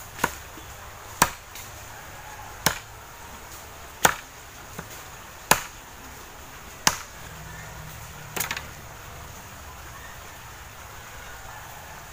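Bolo (machete) chopping dry branches into firewood: seven sharp strikes about a second and a half apart, stopping after about eight and a half seconds.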